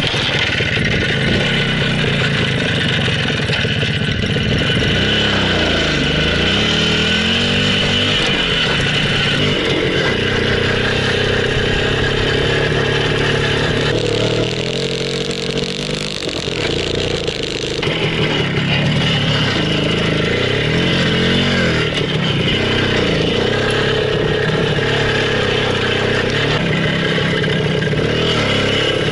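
Soviet Minsk two-stroke single-cylinder motorcycle engine running under way, its revs rising and falling again and again as it is ridden. It dips for a few seconds about fourteen seconds in, then picks up again.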